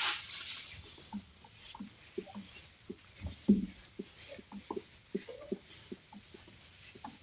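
Dogs in a whelping pen making short, soft grunts and squeaks at an irregular pace, about two a second, with one louder sound about three and a half seconds in.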